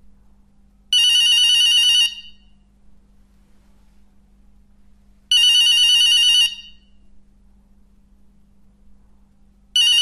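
Telephone ringing in a trilling electronic ring, three rings each about a second long and some four seconds apart, the third starting near the end. A faint steady hum runs underneath.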